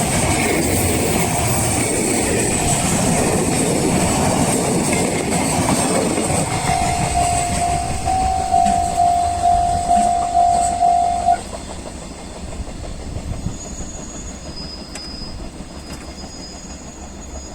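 A train passes over a level crossing, wheels clattering, and its noise fades within the first six seconds. The crossing's electronic warning alarm keeps ringing a steady tone about twice a second and cuts off suddenly about eleven seconds in, a sign that the train has cleared the crossing.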